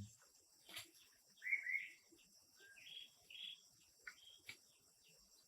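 Faint forest ambience: a steady high insect drone with several short bird chirps, and a couple of light knocks.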